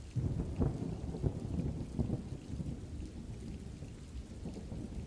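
Thunder rumbling over steady rain. The rumble comes in abruptly at the start with crackling peaks for the first couple of seconds, then rolls on more softly.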